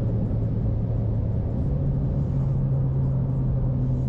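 Car cabin noise while driving at highway speed: a steady low hum and road rumble from inside the moving car. The hum shifts slightly higher about a second and a half in.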